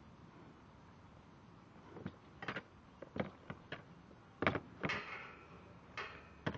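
Metal field gate knocking and rattling as horses lean and push against it: a string of short clanks, the loudest cluster about four and a half to five seconds in, one of them ringing briefly.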